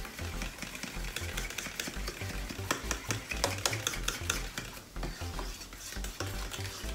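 Whisk stirring thick custard in a stainless steel bowl, with quick, irregular clicks and scrapes of metal against the bowl.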